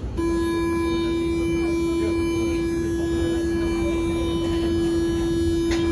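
Metro door-closing warning tone on an automated train: one steady, mid-pitched electronic buzz held for nearly six seconds, stopping abruptly near the end, over the low hum of the standing train.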